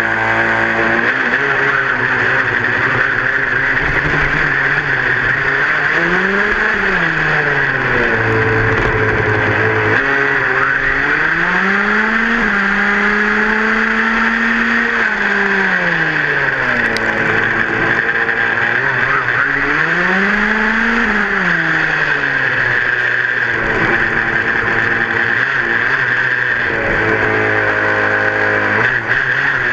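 Small two-stroke engine of a gas-powered 1/5-scale RC buggy, heard from on board, revving up and easing off again several times between spells of steady low running, over a constant hiss.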